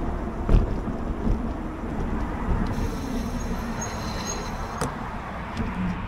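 Wind buffeting the action camera's microphone while riding an e-bike, with tyre and road noise underneath. A single thump about half a second in and a small click a little before the end.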